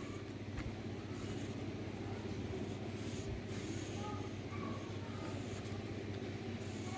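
Pencil drawing on lined paper: several soft scratching strokes over a steady low hum.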